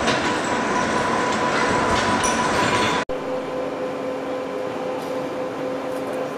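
Workshop machine noise: a large gear-cutting machine working a bevel gear runs with a dense mechanical clatter and a steady whine. About three seconds in it cuts off abruptly and gives way to the steadier, lower hum of a heavy lathe turning a steel shaft.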